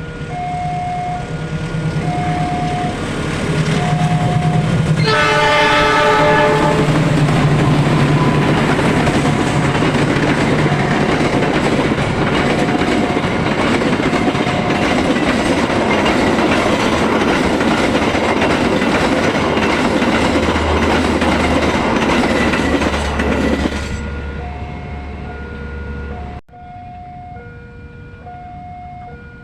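A level-crossing warning signal rings in an even repeating pattern as a train approaches. About five seconds in, the locomotive's horn sounds briefly, as a greeting from the driver. The train then rushes past loudly with wheels clattering on the rails for nearly twenty seconds, after which the crossing signal is heard again.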